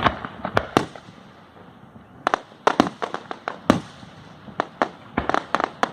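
Fireworks popping and crackling: a run of sharp, irregular bangs, a few in the first second, then quick clusters from about two seconds in until the end.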